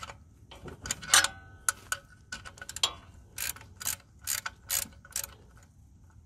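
Hand socket ratchet clicking as it backs out the 13 mm oil drain plug: a few scattered clicks at first, then an even run of about three clicks a second near the middle.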